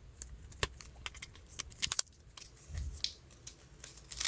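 Light rustling and scattered small clicks of paper and plastic being handled as freebies are worked out of a small packet, with a soft thump about three seconds in.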